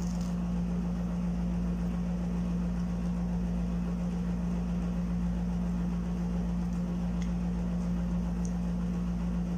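Steady low hum of a room air conditioner running, with a few faint crunches of a hash brown being chewed.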